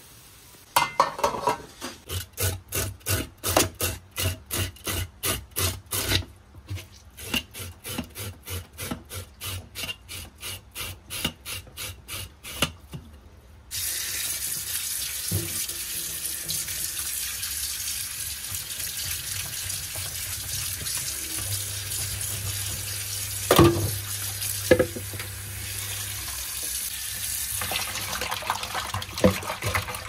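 A regular run of sharp knocks, two or three a second, for the first dozen seconds, then a kitchen tap running steadily into a stainless-steel sink, broken by two sharp knocks in the second half.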